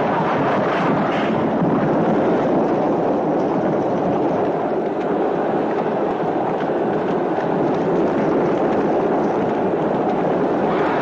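Film soundtrack of a chariot race: teams of galloping horses and chariot wheels running over a sand track, heard as a dense, steady rumble.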